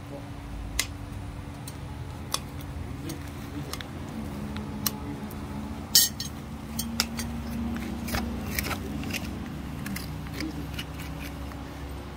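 Hoof nippers cutting through a Clydesdale's hoof wall during a trim: a string of irregular sharp snips, the loudest about six seconds in, over a low steady hum.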